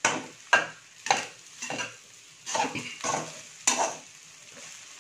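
Metal spatula scraping and stirring egg fried rice around an aluminium kadai, about two strokes a second, with the rice frying in the pan underneath; the strokes stop about four seconds in.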